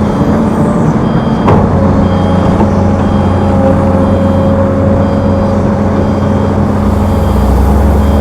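Heavy diesel machinery engine running steadily, with a reversing alarm beeping about once a second. A single metallic knock is heard about a second and a half in.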